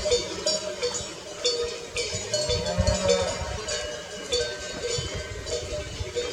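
Cowbells on grazing cows clanking irregularly, several bells overlapping with ringing tones. A low rumble rises about halfway through.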